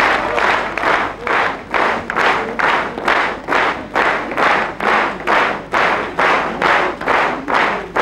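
Theatre audience applauding, the applause falling into rhythmic clapping in unison at about two claps a second.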